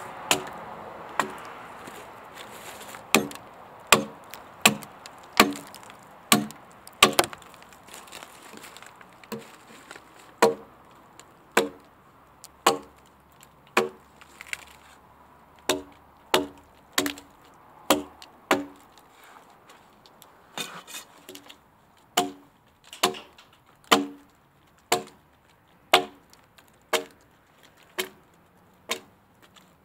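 Axe chopping into a log, about one stroke a second, with a few short pauses. Each blow lands as a sharp knock with a brief ring.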